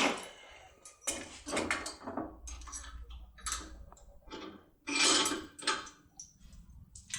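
Safe lockpick being inserted and worked in a lever safe lock: irregular metallic scraping and clicking, with a longer, louder scrape about five seconds in.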